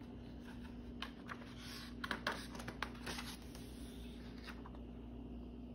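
Pages of a hardcover picture book being handled and turned: a few soft paper rustles and light taps, bunched between about one and three seconds in, over a faint steady hum.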